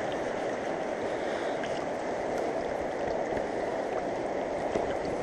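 Fast-flowing mountain river rushing steadily over its bed, an even continuous water noise.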